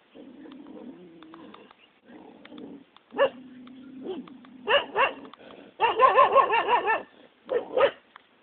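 A dog barking in short separate barks, with a quick run of yaps in the middle.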